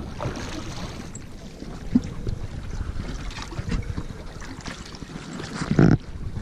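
Wind buffeting the microphone over water lapping against a small boat's hull, with a sharp knock about two seconds in and a louder thump near the end.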